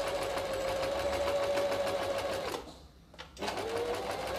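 Janome 523H electric sewing machine stitching a narrow rolled hem with its fine-hem foot, the motor running at a steady pitch. It slows and stops about two and a half seconds in, then starts again and speeds back up about a second later.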